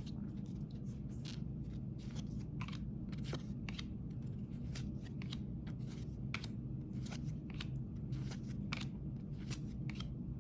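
Trading cards being flipped and slid against each other in the hands: a string of short, irregular swishes and clicks, several a second, over a steady low hum.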